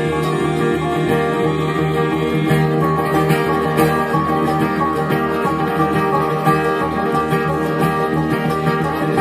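Bluegrass string band playing live: fiddle, acoustic guitar and mandolin over upright bass, at a steady driving tempo.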